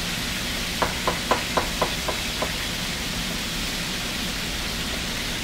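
Knife chopping through an onion onto a plastic cutting board: about seven quick taps, three or four a second, in the first half. Under it, the steady sizzle of chicken thighs searing in olive oil.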